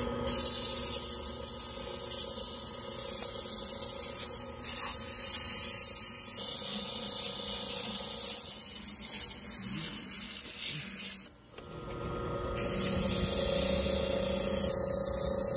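Hand-held sandpaper rubbing on a spalted oak and turquoise cup spinning on a wood lathe: a steady hiss over a steady hum, dropping out briefly about eleven seconds in.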